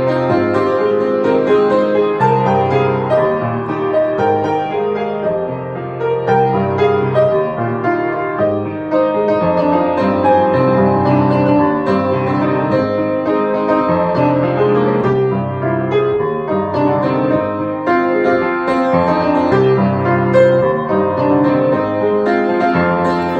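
Solo piano playing a song arrangement: sustained chords over a bass figure that repeats at a steady pace.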